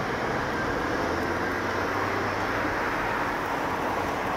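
Steady road traffic noise: an even rush of vehicles moving on a city street, with a faint low engine hum.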